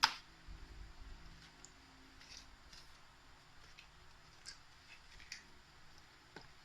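Handling noise from a smartphone being held and worked in the hands: one sharp click right at the start, then faint scattered clicks and taps.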